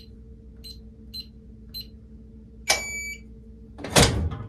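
Gun safe's digital keypad beeping four short times as a code is punched in, then a longer beep about 2.7 s in as the code is accepted, followed about a second later by a loud clunk from the safe's lock and door.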